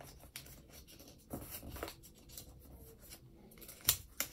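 A small square of paper being folded at the corners by hand: faint paper rustles and creasing, with one sharper tap just before four seconds in.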